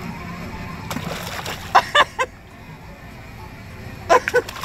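Fish splashing at the water's surface as they strike at a jig. A few short pitched cries come about two seconds in and again near the end.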